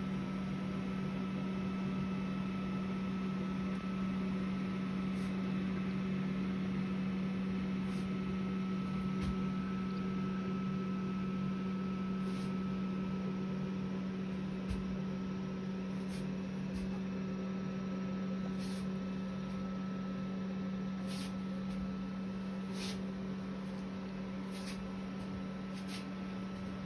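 A steady low hum with a fainter high steady tone above it, and a few light clicks scattered through.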